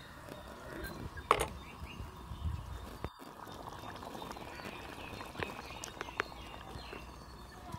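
Chicken and drumstick curry simmering in an aluminium pot, faintly bubbling, against a quiet outdoor background with a few short, sharp sounds. There is a brief dropout about three seconds in.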